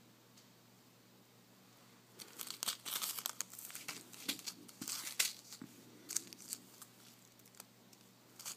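Thin plastic bags of glitter crinkling as they are handled, a busy run of crackles starting about two seconds in and thinning out toward the end.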